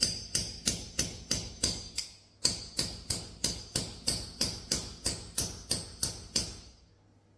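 Hammer blows setting a Red Head anchor, about three ringing metal strikes a second with a short pause about two seconds in. The hammering stops near the end.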